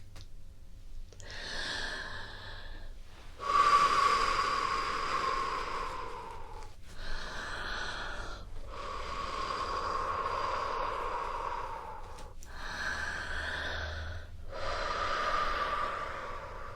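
A person taking slow, deep, audible breaths close to an ASMR microphone: about six long breaths of one to three seconds each, with short pauses between them. The loudest breath starts about three and a half seconds in.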